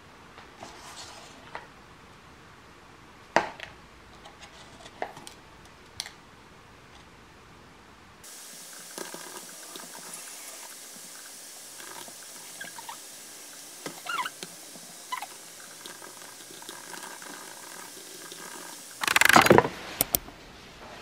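Small clicks and handling noises, then typing on a laptop keyboard: irregular light key clicks over a steady hiss. Near the end, a loud rustle followed by a few sharp clicks.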